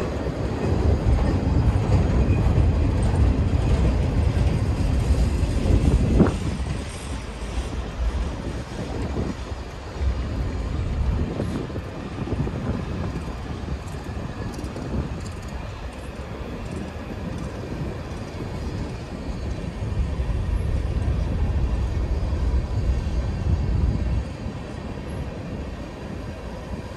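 Freight train cars rolling past close by: a steady rumble of steel wheels on rail that swells and eases as the cars go by, with a brief high rising tone about six seconds in.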